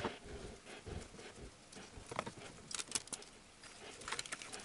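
Quiet scattered clicks and rustles of hands working a soft rubber gasket, stuck on with sealant, free from the engine and handling the plastic parts around it, with small clusters of clicks midway and near the end.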